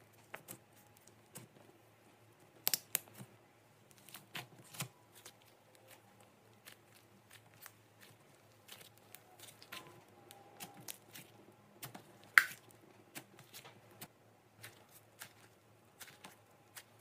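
Slime being squeezed and kneaded by hand: irregular sticky clicks and small crackling pops, with a few louder pops, the sharpest about twelve seconds in.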